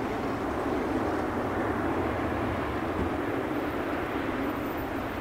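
Boeing 777 freighter's jet engines running steadily as the airliner taxis: an even, unchanging roar, heard from a distance.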